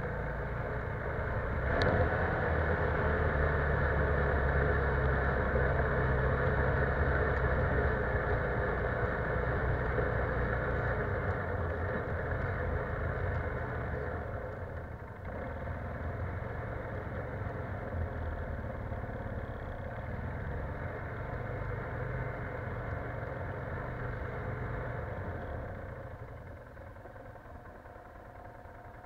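ATV engine running as the quad drives along the trail. It pulls harder from about two seconds in and eases off near the end as the machine slows.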